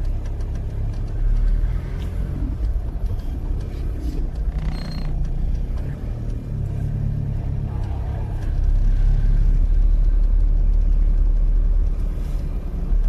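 Steady low rumble of a moving vehicle, engine and road noise, growing louder about two-thirds of the way through, with a short hiss about five seconds in.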